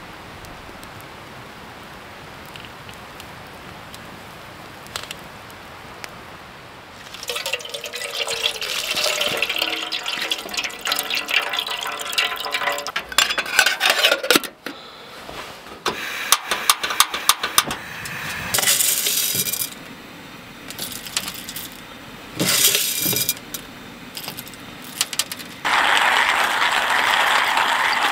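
After about seven seconds of low steady background noise, water is poured into a vessel, the pitch rising as it fills. Sharp metal clicks and clinks follow, then several further loud bursts of pouring or hissing.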